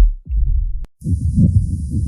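Recorded heart sounds heard through a stethoscope, a low beat repeating less than a second apart. About a second in, after a brief break, another heart recording starts in which a continuous murmur fills the time between the beats.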